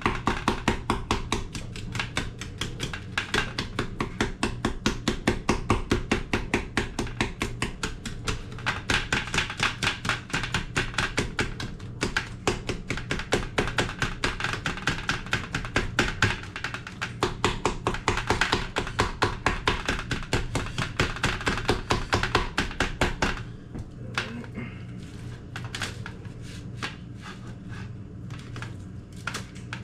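Knife chopping rapidly on a cutting board, an even run of quick strokes several a second, stopping about three quarters of the way through, followed by a few scattered taps.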